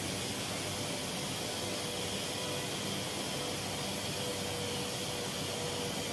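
Air-powered orbital polisher running on a car body's painted roof: a steady air hiss with a faint whine.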